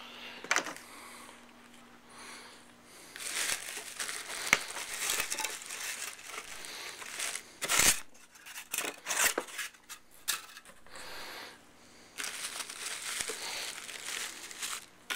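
Packaging being crinkled and torn open by hand while contents are unpacked, in bursts of rustling, with a sharp click about eight seconds in.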